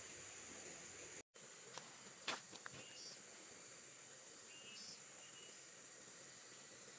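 Quiet outdoor background of steady high-pitched insect hum and hiss, broken by a brief gap just over a second in, then two short sharp clicks and a few faint short chirps.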